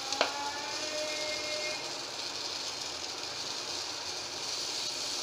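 Sooji batter sizzling steadily on a hot iron tawa, with a short metallic clink of the spoon about a quarter second in.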